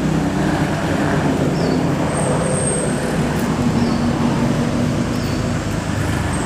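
Steady low rumble and hiss of a running motor vehicle engine, unchanging throughout.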